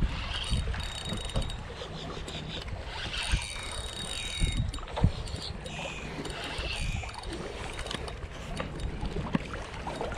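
Spinning reel being cranked against a hooked fish pulling on the bent rod, with wind buffeting the microphone.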